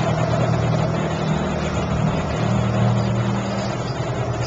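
Engine of a small motorboat running steadily close by, a low even hum.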